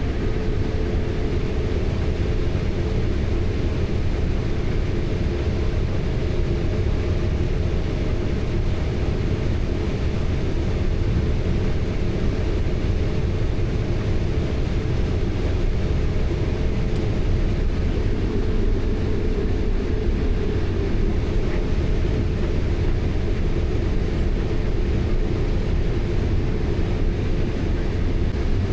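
Heavy farm vehicle running steadily, heard from inside its cab: a constant low engine drone and rumble with a faint steady hum.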